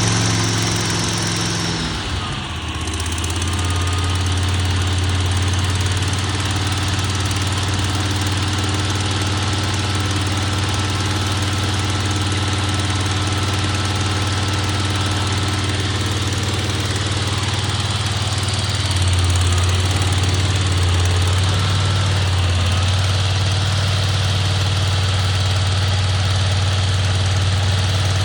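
Briggs & Stratton petrol engine of a remote-control flail mower running steadily. It dips briefly about two seconds in and gets a little louder about two-thirds of the way through.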